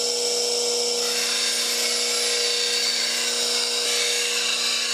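Bench grinder with a CBN wheel running with a steady hum while the steel heel of a spindle gouge is ground against it, a hissing grind that grows louder about a second in. The heel behind the bevel is being worn away to shorten the bevel.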